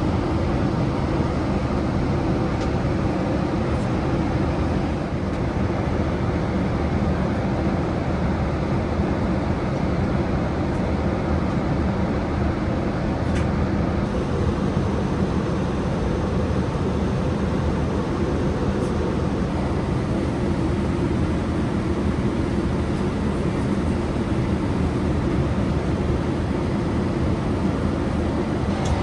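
Steady cabin noise of a Boeing 787-8 Dreamliner in flight: an even, low rush of airflow and engine noise with a faint steady hum, unchanging throughout.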